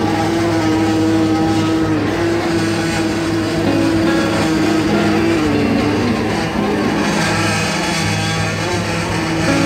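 Fishing boat's engine and machinery running with a steady drone while a purse-seine net is hauled alongside.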